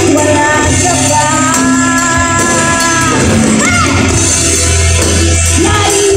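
A live rock band playing, with a singer holding long notes over a steady bass line.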